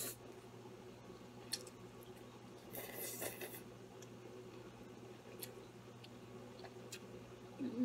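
Instant ramen noodles slurped and chewed, with one longer slurp about three seconds in and a few small mouth clicks. A short hum-like voice sound near the end.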